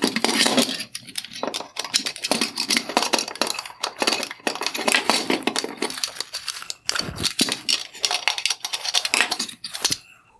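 Flathead screwdriver prying the rear clips off a halogen headlight projector's chrome bezel, then the bezel being worked loose by hand: a dense, irregular run of clicks, scrapes and rattles of plastic and metal parts, with a louder knock about seven seconds in.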